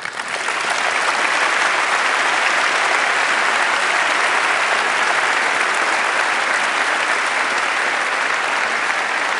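A large audience applauding: dense clapping that swells up within the first half second and then holds steady.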